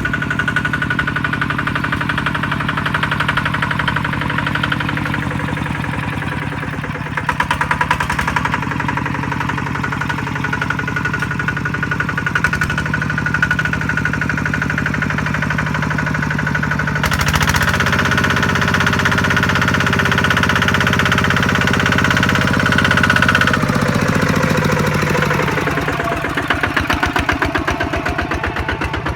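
Kubota RT155 single-cylinder diesel engine of a loaded farm truck, running steadily with a fast even knock. It works harder and louder for several seconds past the middle, then its speed drops and picks up again near the end.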